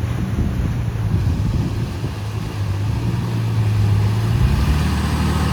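Four-wheel-drive vehicle driving, its engine running with a steady low drone over tyre and road noise; the engine note drops about four and a half seconds in.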